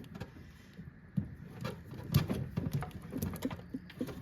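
Old vehicle wiring being handled and tugged by hand: scattered light clicks and rustling at an irregular pace.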